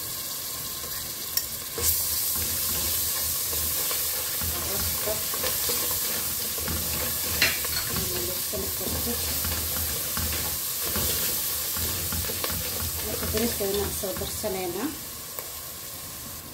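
Chopped onion and a bay leaf frying in oil in a stainless steel pot with a steady sizzle. A ladle stirs and scrapes through them, with a couple of sharp clicks against the pot.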